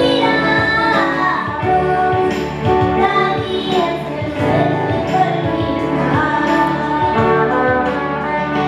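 A young girl singing a Tamil song with electric guitar and electronic keyboard accompaniment.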